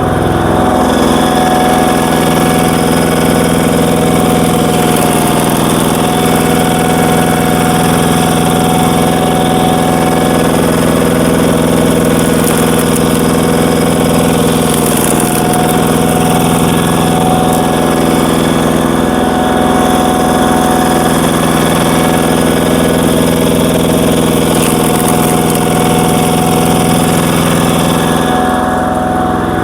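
A walk-behind power tiller's single-cylinder diesel engine running steadily at an even speed, powering a screw-type log splitter.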